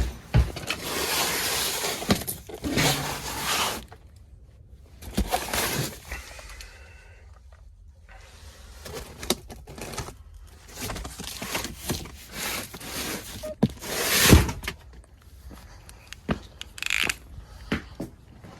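Irregular knocks, thumps and rustling scrapes, as of someone walking and handling things, with one sharp loud knock about 14 seconds in.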